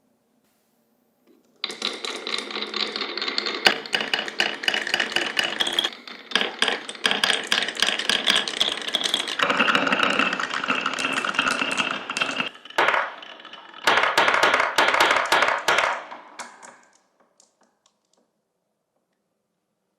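Marbles rolling and clattering down a wooden marble run track: a dense, fast rattle of clicks that starts about a second and a half in, changes tone about halfway through, dips briefly, then stops a few seconds before the end.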